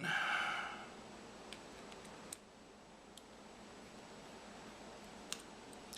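Small screwdriver working a tiny screw out of a dial caliper's back cover: a brief squeak in the first second, then a few faint light clicks.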